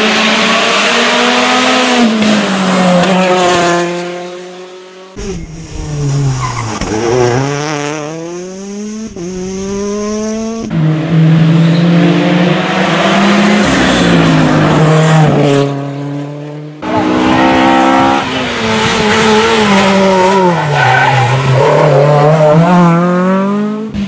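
Rally cars' engines through a tarmac bend in four separate passes, cut one after another. In each pass the engine pitch drops as the car slows into the corner, then rises in steps as it accelerates hard out through the gears.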